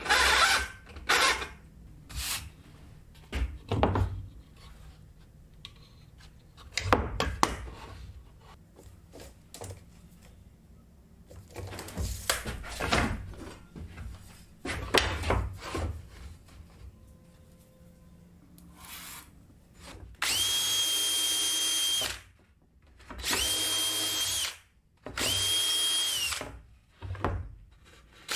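Knocks and clatter of wood pieces being handled, then a power drill running in three short bursts of about two seconds each in the last third, with a steady whine.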